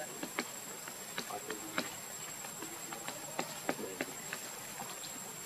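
Outdoor insect ambience: an even hiss with a thin, high steady tone, dotted with scattered sharp ticks and clicks and a few faint, short low calls.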